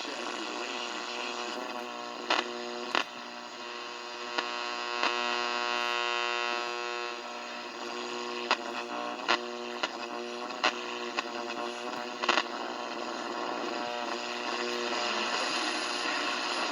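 1959 Zenith model C519 clock radio picking up no station, only a steady buzzing hum made of many stacked tones, broken by sharp clicks at irregular intervals. The buzz grows brighter for a couple of seconds about five seconds in.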